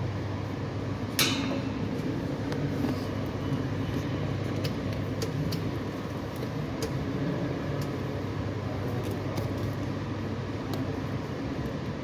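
Steady low hum of a large glass-roofed indoor hall, with scattered small clicks and knocks and one sharp clack about a second in.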